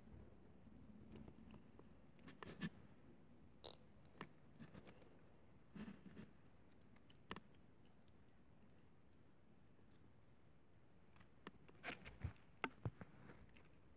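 Faint, scattered crinkles and small clicks of a foil wrapper being picked off a small chocolate egg by fingers, with a cluster of them near the end.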